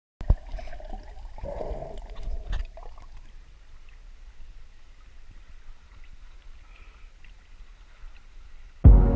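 Sea water sloshing and splashing close by at the surface, with a few splashes and knocks in the first three seconds, then quieter lapping. Music cuts in suddenly near the end.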